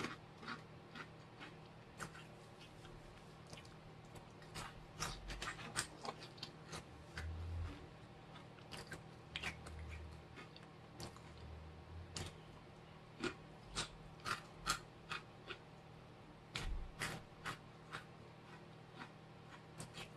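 A person chewing crunchy corn snacks close to the microphone: irregular, crisp crunches, many in a row, with no words.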